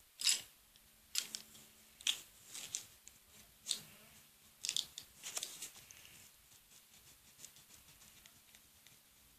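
Paper being handled for a craft: about seven short, crisp rustles and snips over the first six seconds, then only faint light handling sounds.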